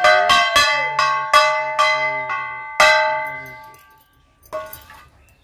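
Puja hand bell (ghanta) rung during arati, about two rings a second. The ringing stops just under three seconds in and dies away, with a light knock near the end.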